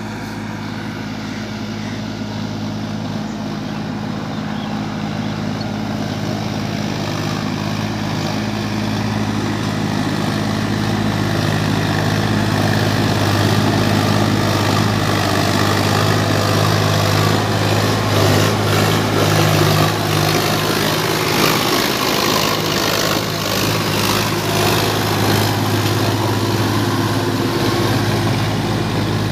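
Sonalika 50 RX Sikander tractor's diesel engine running steadily under load while hauling a trolley piled high with grain sacks, a low even drone that grows louder as it comes close and passes.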